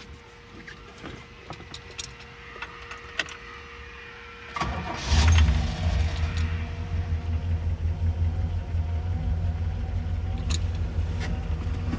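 Keys click and rattle in the ignition. About four and a half seconds in, the 1966 Pontiac GTO's tri-power 389 V8 cranks briefly and fires on a cold start, then settles into a steady idle.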